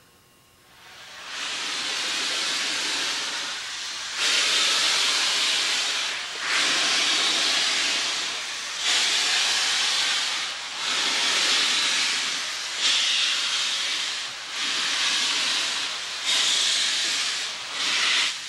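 Pere Marquette 1225, a 2-8-4 Berkshire steam locomotive, hissing steam in long rhythmic blasts, about one every two seconds, as it moves slowly past.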